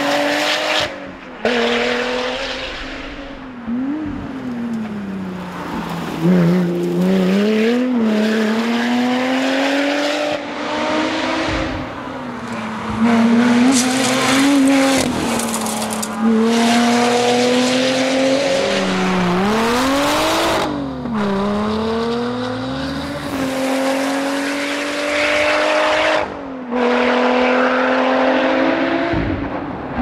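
Supercharged V6 engine of a Lotus Exige rally car driven hard. The engine note climbs and drops again and again as it accelerates and slows, and it breaks off suddenly a few times.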